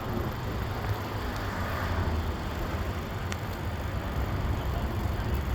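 Street traffic noise: a steady rumble of passing cars along a busy road, with two faint ticks.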